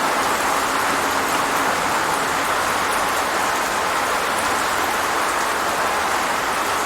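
Steady rain falling: an even hiss with faint ticks of individual drops scattered through it.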